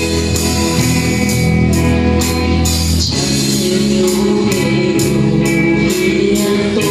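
Song music playing with a steady beat, high strokes about twice a second, over held chords that change about three seconds in.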